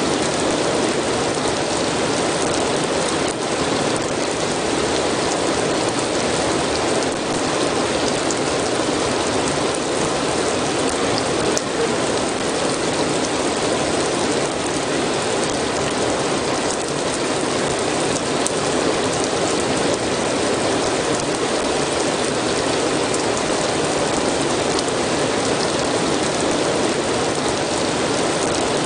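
Steady rain falling, an even unbroken wash of noise with the occasional single drop ticking out of it.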